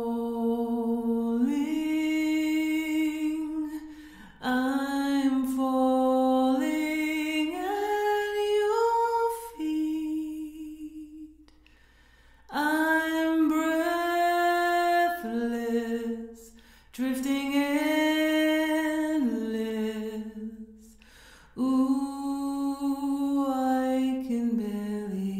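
Solo voice singing a slow, unaccompanied melody in long held notes, the phrases separated by short pauses.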